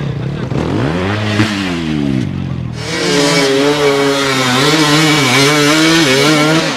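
Dirt bike engine revving, its pitch rising and then falling in the first two seconds; from about three seconds in an engine is held at high revs, its pitch wavering, as the bike claws up a muddy climb.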